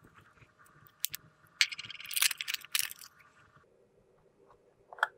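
Small clear plastic case being handled and opened: light clicks and taps, a burst of crinkling plastic in the middle, and one sharp plastic click near the end.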